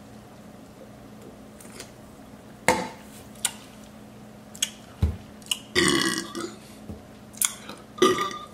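A man belching after gulping carbonated soda: a long burp a little over halfway through and another near the end, with short mouth clicks and smacks between them.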